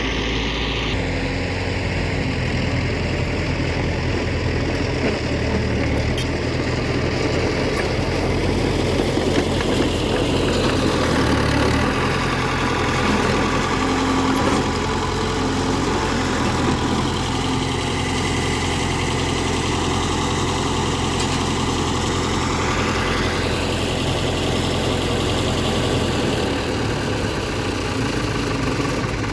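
Heavy diesel engines of earthmoving machinery running steadily at a low drone.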